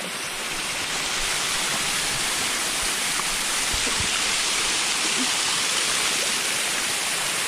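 Waterfall on a mountain creek: a steady rushing hiss of falling water.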